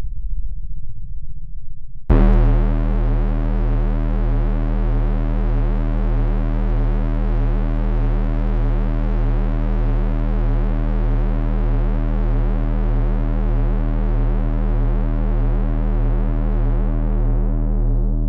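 Cinematic drone sound effect: a low rumble, then about two seconds in a sudden, sustained synthesizer tone, deep and rich in overtones, held steady, its brighter upper part fading away near the end.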